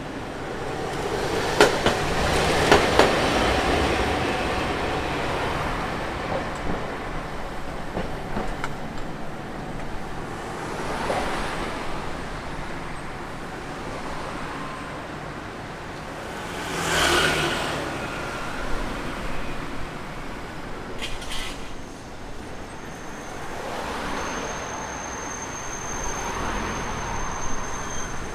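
A Hankai Line tram running over a street-level railroad crossing, its wheels clicking sharply over the rail joints a couple of seconds in, amid steady street traffic noise. A thin, high whine sounds near the end.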